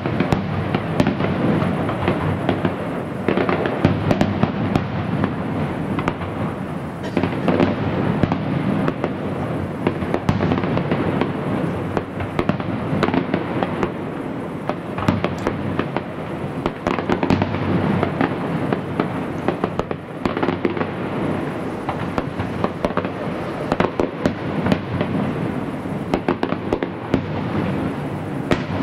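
Fireworks display: a continuous, dense barrage of bangs and crackling with no pause.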